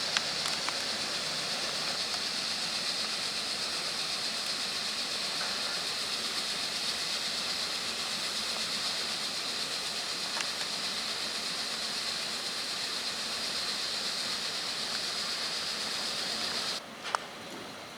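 Steady hissing noise from a freight train, with a high-pitched edge and a few faint clicks. It starts suddenly and cuts off abruptly near the end.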